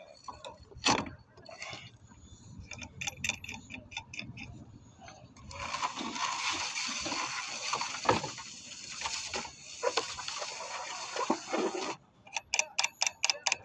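Borewell filter pipe being handled and lowered: scattered clicks, then a rough scraping noise for about six seconds with a few knocks in it, then a quick run of ticks near the end.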